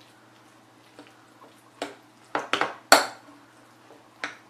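Metal spoon clinking against a white ceramic bowl while stirring black bean sauce into rice: a few sharp clinks, most of them bunched between about two and three seconds in, one more near the end.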